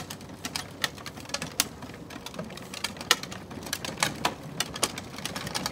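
Ride-on toy tractor rolling along a paved path: its hard plastic wheels give irregular clicks and crackles over grit, over a faint steady hum from its drive.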